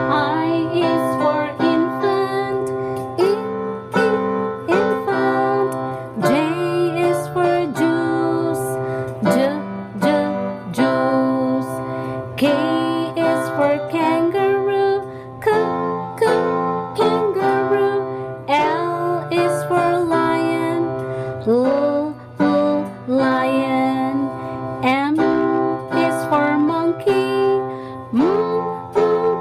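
A children's song: a voice singing a melody over a plucked string accompaniment.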